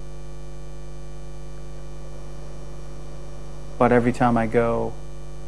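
Steady electrical hum, a low buzz with a constant pitch, with a brief spoken phrase about four seconds in.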